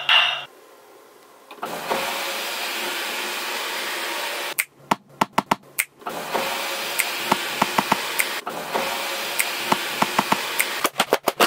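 A car's electric sunroof motor running with a steady whir, which stops for a moment of sharp clicks midway and then starts again. A quick run of clicks comes near the end.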